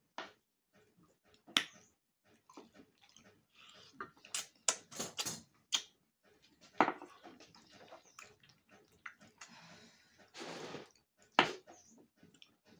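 Close-up eating noises: irregular slurping and chewing, with a few sharp clicks and a short wet rushing sound about ten seconds in.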